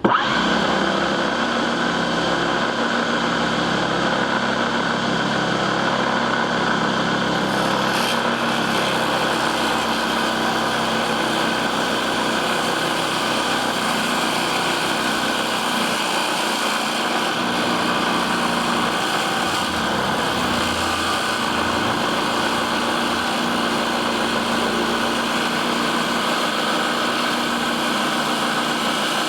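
Homemade table saw driven by a 997 motor switched on suddenly and running steadily at speed, a constant motor whine with the blade spinning.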